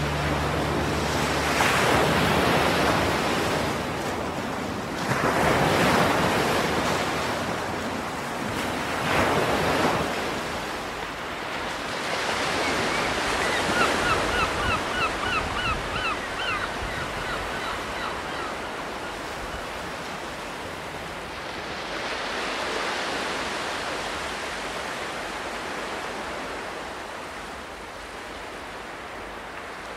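Ocean surf: waves washing in and drawing back, swelling and fading every few seconds. A quick run of short, repeated high chirps sounds over the surf for a few seconds about halfway through.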